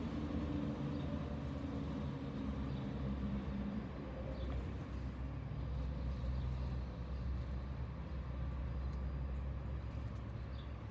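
Steady low machine rumble, with a low droning hum over it that fades about four seconds in.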